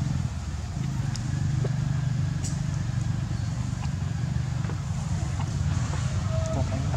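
Steady low rumble with a few faint ticks over it.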